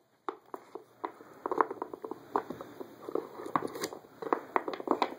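A dog working the pieces of a wooden dog puzzle toy with its mouth and nose, making irregular wooden clicks and knocks.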